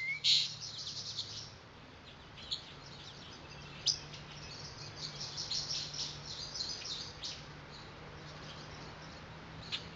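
Songbirds chirping and tweeting in many short, high calls, thickest at the start and again in the middle, over a faint steady low hum.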